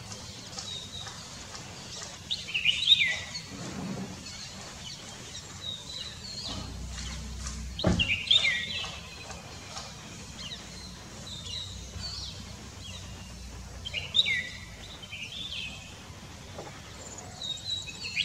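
Red-whiskered bulbul singing: short phrases of whistled notes with falling slurs, repeated about every five to six seconds, four phrases in all. Fainter chirps fill the gaps between phrases.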